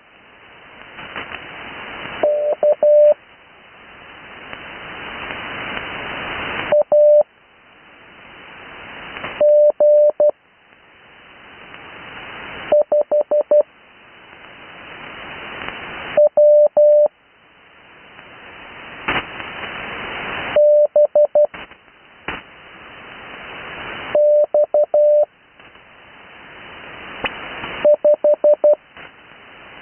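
Morse code received on an 80-metre amateur band receiver: a single tone near 600 Hz keyed in short groups of dots and dashes, sent as Farnsworth-spaced practice characters. There are eight characters, one about every three and a half seconds with long gaps between them. Band hiss swells in each gap and dips as each character sounds.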